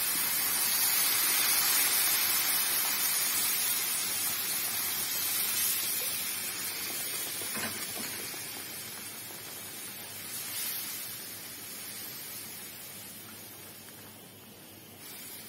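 Hot tomato-paste and flour sauce frying in oil, sizzling and hissing as water is poured into the frying pan; the hiss is strongest at first and slowly dies down as the liquid settles to a simmer.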